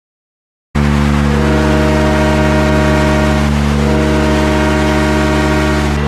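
Dinamo Riga ice hockey goal horn: a loud, sustained multi-tone air horn that cuts in suddenly out of silence under a second in and holds steady, its upper tones shifting a couple of times.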